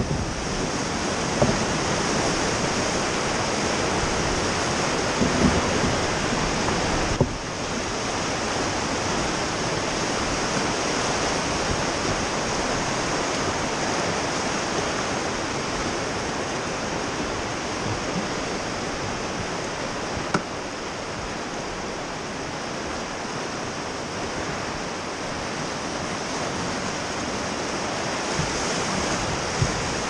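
River whitewater rushing and churning steadily around a raft, with a few brief knocks scattered through.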